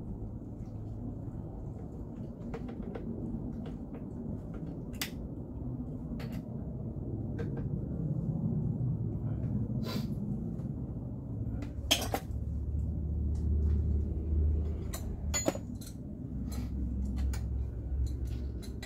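Scattered small metallic clicks and clinks of a wrench and hands working on the oil filter adapter of a 3.6 Pentastar V6 in a cramped spot, with two sharper knocks about twelve and fifteen seconds in. A low steady rumble runs underneath.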